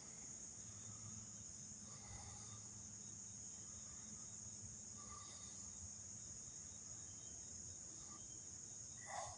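Faint, steady high-pitched insect chorus trilling without a break. A brief soft sound comes near the end.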